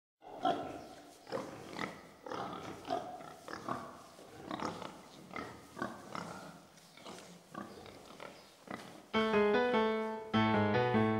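Pigs grunting: short grunts at uneven intervals, a couple a second. About nine seconds in, a louder piano-like keyboard tune starts over them.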